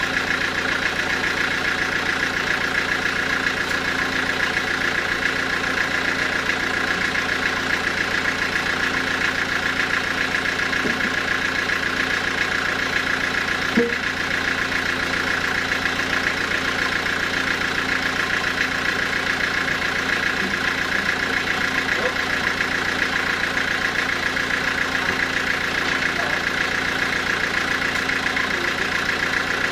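Sawmill engine running steadily at an even pace, with one sharp knock about halfway through.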